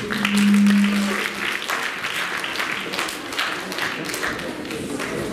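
Audience applauding, a dense patter of hand claps, with a low held musical note sounding over the first second.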